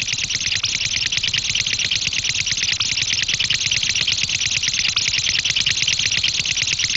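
Cartoon sound effect: a fast, even rattle, many hissy clicks a second over a low pulsing thud, held steady.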